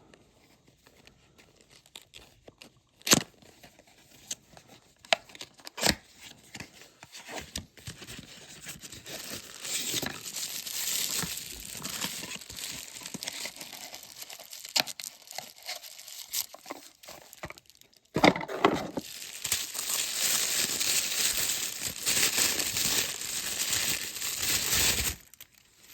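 Plastic toy packaging being torn open and crinkled by hand. There are a few sharp snaps early on and scattered rustling, then steadier, louder crinkling and tearing for the last seven seconds or so, which stops shortly before the end.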